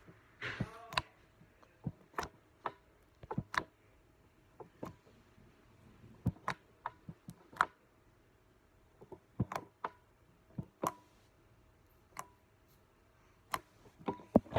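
Sticky slime being pressed and worked by hand, giving irregular sharp pops and clicks, about twenty in all with short pauses between.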